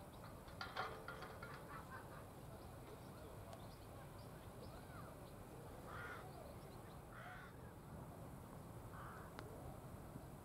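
Faint outdoor ambience with harsh, caw-like bird calls: a quick run of calls about a second in, then a few single calls later, over a steady low background hum.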